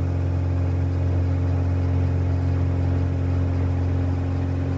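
Cirrus SR20's freshly overhauled six-cylinder Continental IO-360 engine and propeller at full takeoff power, a steady low drone heard inside the cabin during the takeoff roll.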